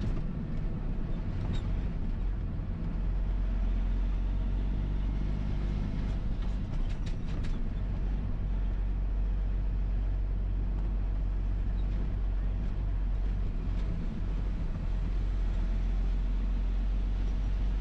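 Triaxle dump truck's diesel engine running steadily at low speed, heard from inside the cab as a low, even drone. A short run of clicks and rattles comes about six to eight seconds in.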